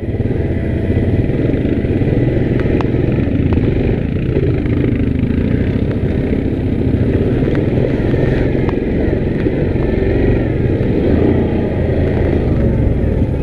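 Yamaha Grizzly 700 ATV's single-cylinder four-stroke engine running steadily under way on a trail, with a few light knocks from the machine.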